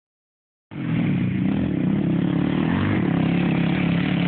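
ATV engines running, the pitch rising and falling with the throttle as the quads ride over the dirt. The sound cuts in suddenly, a little under a second in, after a short silence.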